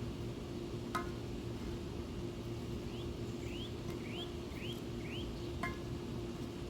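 Two ringing metallic clinks, about a second in and near the end, as charcoal briquettes are set on a cast iron Dutch oven lid. In between, a bird gives a quick series of short rising chirps.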